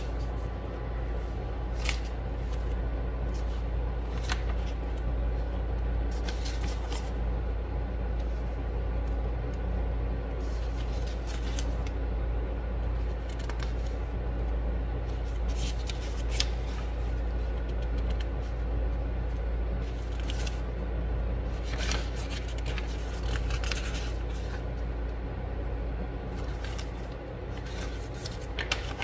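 Scattered small clicks and scrapes of hand soldering work on a circuit board, over a steady low hum.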